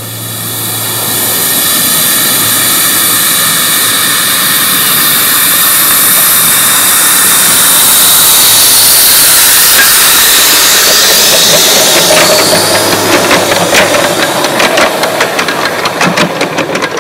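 3½-inch gauge live-steam model locomotive hissing steam loudly; about twelve seconds in, a rapid run of exhaust beats starts over the hiss and grows denser.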